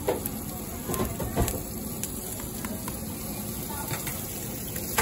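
Pancakes sizzling in butter on a hot flat griddle, a steady hiss. A metal spatula clinks and scrapes against the griddle a few times in the first second and a half.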